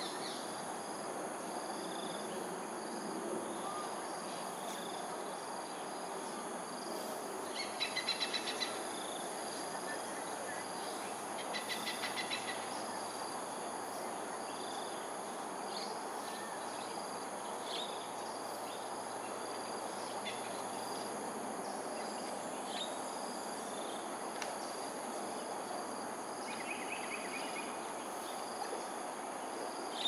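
Insects shrilling steadily at high pitch over a steady background hiss, with short rapid trilled calls about 8 and 12 seconds in and again near the end.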